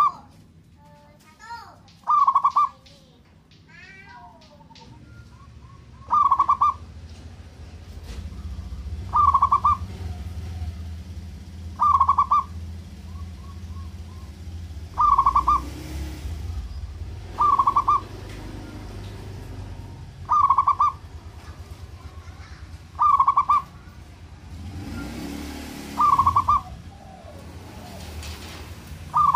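Zebra dove (perkutut) cooing: a short burst of rapid coos, repeated every two to three seconds, about eleven times. Other small birds chirp faintly in the first few seconds, and a low steady rumble sits underneath from about seven seconds on.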